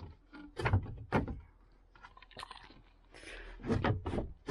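Slide-out wooden slatted bed frame being pulled out by hand. There are a couple of sharp wooden knocks about a second in, then a longer sliding scrape near the end.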